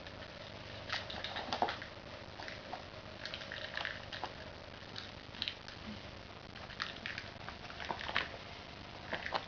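A kitten batting and pouncing on a toy mouse: irregular light taps, scuffs and skitters, busiest about a second in and again near the end.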